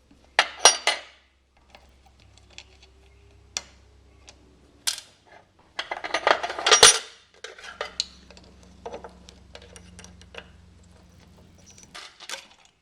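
Metal clinks and clatter of hand tools, bolts and the carburetor as the mounting bolts come out and the carburetor is lifted off a Tecumseh lawnmower engine. There are a few sharp clinks about half a second in, a louder burst of clatter about six to seven seconds in, and a couple more clinks near the end.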